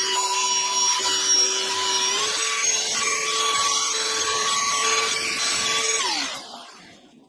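Rotary machine polisher running on car paint: a steady motor whine over a rubbing hiss. The pitch steps up about two seconds in, then near the end the machine is switched off and winds down.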